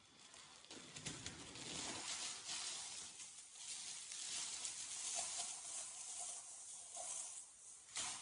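Plastic bags and packaging rustling and crinkling as they are handled, with a sharper, louder crackle near the end.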